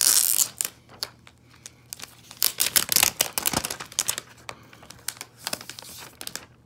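Thin clear plastic wrap being peeled and pulled off a new iPad, crinkling and tearing in a run of short crackles, loudest at the start and again around the middle.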